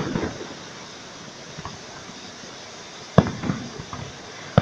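Fireworks display: a volley of crackling bursts dies away, then after a lull of about three seconds a single sharp, loud bang with a few smaller pops after it.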